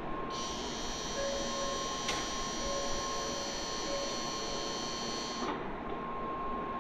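A high-pitched electronic buzzer on the Shinkansen platform sounds steadily for about five seconds, then cuts off abruptly, under a faint steady whine.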